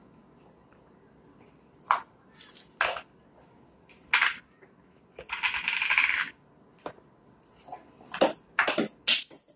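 Plastic Play-Doh cans and lids knocking and clattering against a plastic high-chair tray: a handful of separate taps, with one longer, noisier sound about halfway through and a quick run of knocks near the end.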